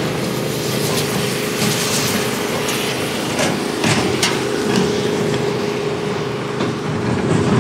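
Machinery running steadily with a constant hum, with a few sharp clicks and knocks about three and a half to four seconds in.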